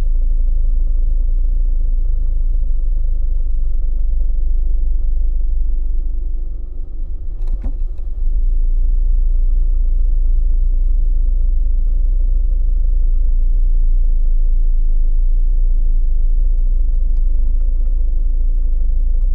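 Car interior ambience: a steady, deep road-and-engine rumble heard from inside the cabin. About seven seconds in, the rumble eases for a moment and a short tick is heard, then it returns to its steady level.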